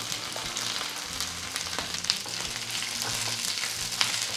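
Cut okra sizzling as it lands in hot oil in a nonstick frying pan: a steady frying hiss. A wooden spatula stirring the pieces adds scattered clicks and scrapes.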